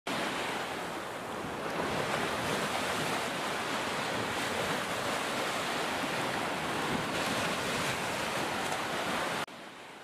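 Ocean surf washing onto a sandy beach, a steady rush of breaking waves that drops away suddenly near the end.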